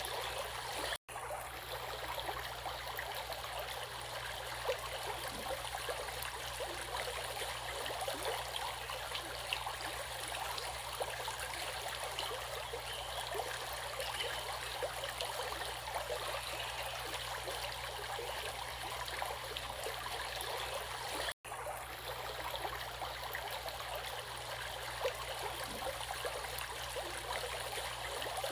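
Stream water flowing and trickling steadily, with fine splashes and no swell of waves. The sound drops out for an instant twice, about a second in and again after about 21 seconds.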